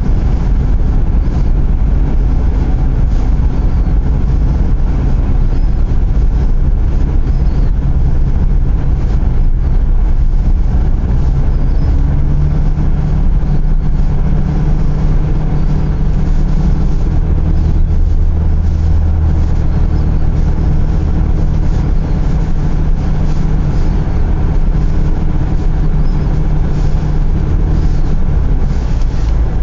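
Vehicle engine and road noise heard from inside the cabin: a steady low rumble, with the engine's note shifting a little now and then.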